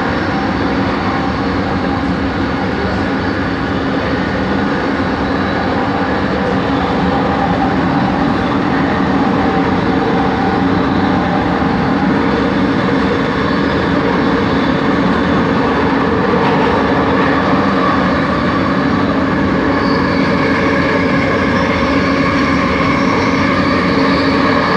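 Kelana Jaya Line train's linear induction motor drive running, heard from inside the carriage. It is a steady rumble with several held tones, the unusual motor noise the line's original trains make, and higher tones come in near the end.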